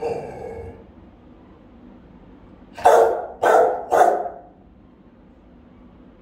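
Rottweiler barking indoors, full and resonant: one bark right at the start, then three loud barks in quick succession about three seconds in, roughly half a second apart.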